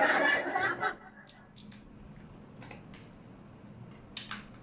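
Scattered light clicks and taps of wooden chopsticks against a plastic food tray as pieces of kimbap are picked up, after a man's voice trails off in the first second.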